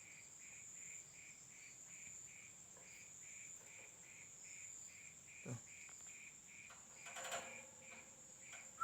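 Faint background insect chirping: a steady high-pitched trill with a softer chirp repeating about three times a second. A soft thump comes about five and a half seconds in.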